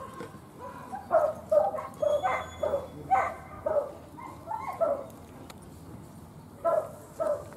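Small dog yapping: a quick string of short, high barks, about three a second, from about a second in until about five seconds, then two more near the end.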